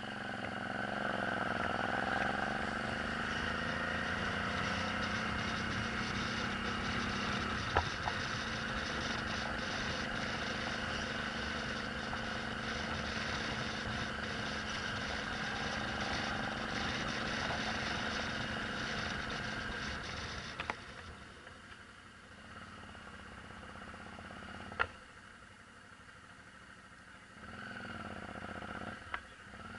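Suzuki V-Strom 650's V-twin engine running as the motorcycle climbs, over a steady haze of riding noise, its pitch swinging in the first few seconds. About twenty seconds in it drops to a much quieter low-speed run, with two sharp clicks, one about eight seconds in and one near twenty-five seconds.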